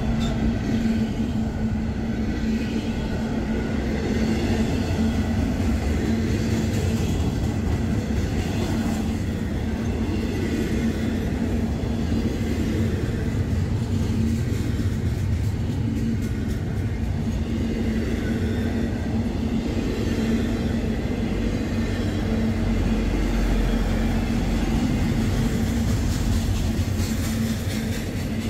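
Intermodal freight train rolling past close by: a steady rumble of steel wheels on the rails as double-stack container cars and trailer-carrying flatcars go by, with a steady low hum under it.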